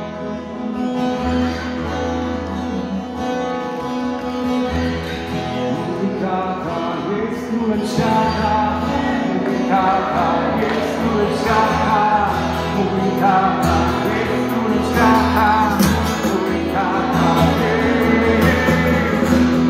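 Live worship band music: strummed acoustic guitars with bass and keyboard, and singing coming in about eight seconds in, slowly getting louder.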